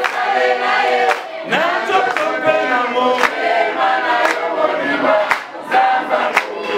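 A group of voices singing together, several lines at once, with a sharp beat about once a second.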